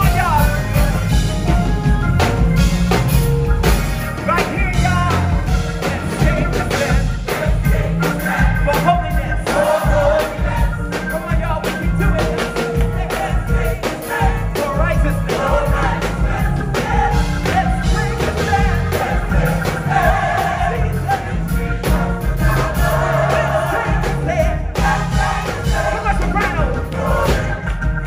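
Live gospel choir singing over a full band with drums, bass and keyboard, in a loud, driving praise section.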